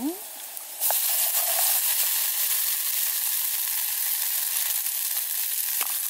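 Garlic cloves frying in oil in a pan, a steady sizzle that jumps suddenly louder about a second in as wet boiled spaghetti goes into the hot oil, then keeps sizzling loudly.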